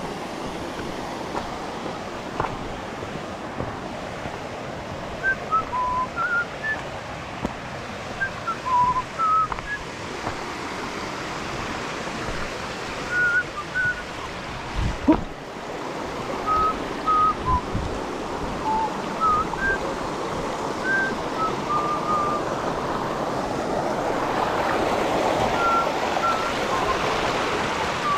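Steady rush of flowing creek water, growing louder near the end, with short high whistled notes scattered through it in little runs and a single dull thump about fifteen seconds in.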